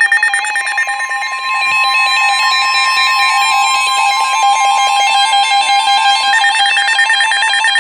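Emergency Alert System tones from a NOAA Weather Radio alert: a loud, steady warning alarm tone near 1 kHz over a second tone that steps rapidly between pitches. Buzzing SAME header data bursts sound at the start and again near the end.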